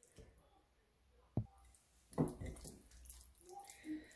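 Soft, wet squishing of hands rubbing an oily spice marinade onto a boneless fish fillet in a glass bowl, in a few short bouts, with one sharp tap about a second and a half in.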